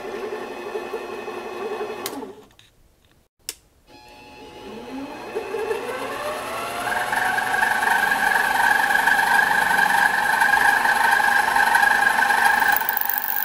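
Harbor Freight metal lathe's motor running with a steady whine, then switched off about two seconds in. Two sharp clicks follow. It is started again and its whine rises in pitch as it spins up, settling into a louder steady run for drilling into the wood blank.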